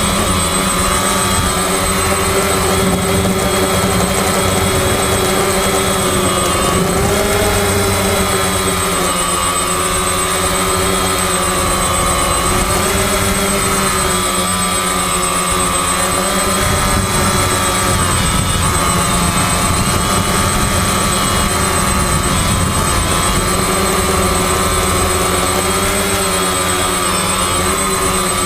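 FPV quadcopter's electric motors and propellers whining without a break, their pitch wavering up and down with the throttle, over a constant high-pitched tone.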